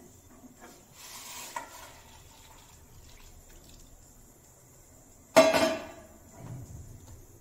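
Hot water poured from a steel pot over cut cauliflower in a steel bowl, then the empty steel pot set down on a gas-stove burner grate with a loud metallic clank and brief ring about five seconds in, followed by a softer knock.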